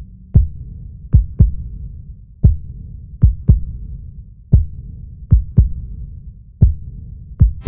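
Heartbeat-like sound effect over a low rumbling drone: deep thumps at roughly one group a second, some single and some in quick pairs about a quarter second apart.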